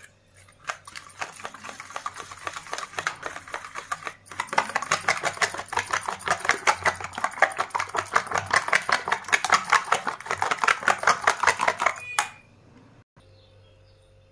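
Steel spoon beating eggs in a stainless steel bowl: a fast, even clinking of spoon against metal, which pauses briefly about four seconds in, comes back louder and stops about two seconds before the end.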